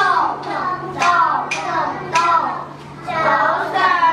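A group of young children chanting a rhyme together in a sing-song voice, in a steady rhythm with sharp accents about twice a second.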